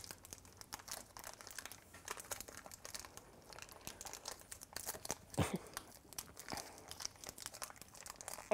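Small yellow plastic bag from a Shopkins pack being crumpled and twisted open by hand, a quick irregular crackle of thin wrapper that takes some working to open. A brief low voice sound cuts in about five seconds in.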